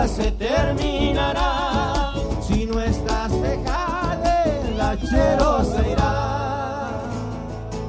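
Argentine chaqueñada folk band playing live: violin and voice lines over acoustic guitar, with steady bombo drum strokes. About six seconds in, the drum beats stop and the music thins out and softens.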